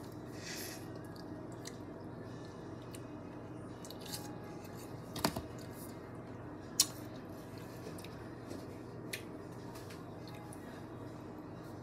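Someone biting and chewing watermelon close to the microphone: quiet wet chewing with a few sharp clicks, the loudest about five and seven seconds in, over a steady low hum.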